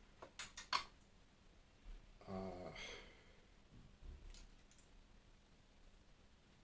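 Several quick sharp clicks of plastic parts being handled in the first second, then one short vocal sound from the person about two and a half seconds in; faint room tone after.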